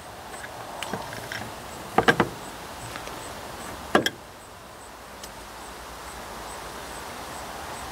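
Small handling knocks: a quick cluster of sharp clicks about two seconds in and a single sharp knock about four seconds in, over a faint steady hiss.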